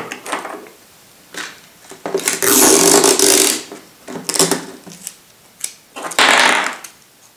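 Clear adhesive tape pulled off a desk dispenser roll in a long buzzing rasp about two seconds in, followed by short rips and a second, shorter pull near six seconds.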